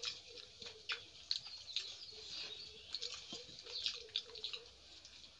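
Eating by hand: a quick, irregular run of small wet smacks and squishes as fingers mix rice with curry and mouths chew.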